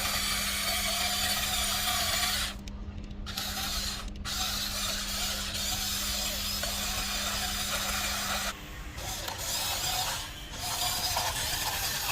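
Small electric motors and gearboxes of a radio-controlled construction toy whirring, with a steady hum underneath. The whirr drops away briefly several times, as if the motors pause between movements.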